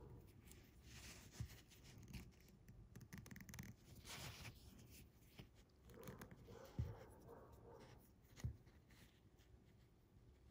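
Faint rustling and scratching of fishing line being wrapped and pulled between the fingers while a knot is tied by hand, with a few soft low thumps of hand contact.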